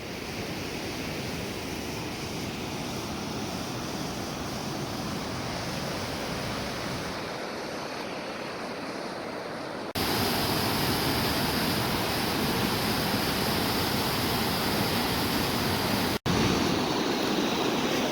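Steady rush of water, like a waterfall or river. About ten seconds in it switches abruptly to a louder, fuller rush, and there is a brief dropout near the end.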